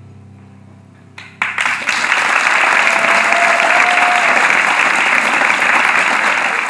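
The male voice choir's last chord fading out, then audience applause breaking out about a second and a half in and carrying on loud and steady.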